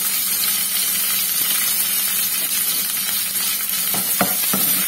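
Sliced shallots, curry leaves and green chillies sizzling steadily in hot oil in a kadai. Near the end a spatula knocks and scrapes against the pan a few times as the mixture is stirred.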